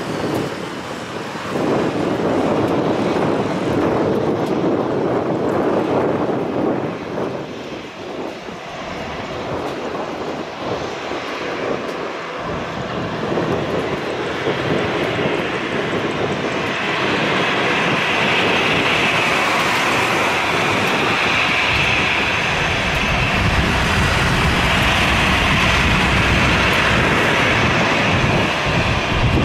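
Airbus A320's twin jet engines running at taxi power: a steady rush with a high whine that grows louder from about halfway through, as the jet turns and comes round towards the listener.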